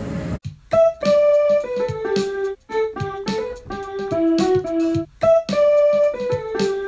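Short keyboard outro tune with a piano sound: a melody of single notes that mostly steps downward, starting over about five seconds in.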